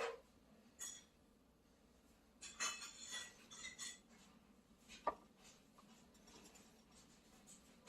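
Faint handling noises of a metal monitor arm mount: a sharp click at the start and another about a second in, a short rattling clatter of clinks a few seconds in, then a single sharp knock.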